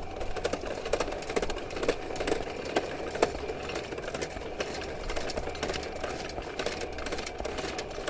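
Electric drain snake running: its motor hums steadily while the spinning 5/8-inch cable rattles and clicks as it is fed up a sewer line.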